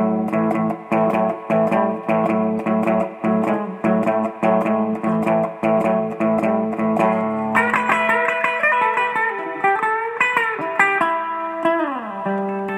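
Guitar music with a steady picked rhythm. About seven and a half seconds in, higher guitar notes come in, some of them bending and sliding in pitch.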